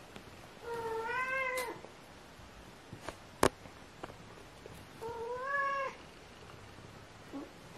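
British shorthair kitten meowing twice during play-wrestling, each meow about a second long, rising a little in pitch and dropping at the end. A single sharp click falls between the two meows.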